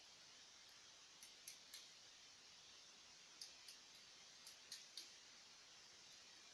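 A crab's claw pincers working like scissors in a boy's hair, giving faint, sharp clicks: three about a second in, then five more about two seconds later, over a low hiss.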